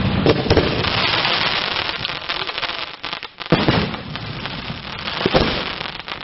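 Aerial fireworks shells bursting overhead, with a dense crackling hiss from crackling-star effects. A sharp bang comes about three and a half seconds in, and another nearly two seconds later.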